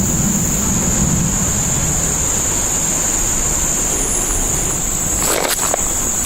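A steady, high-pitched insect chorus drones without a break over a constant low rumble. A brief rustle or crunch comes about five seconds in.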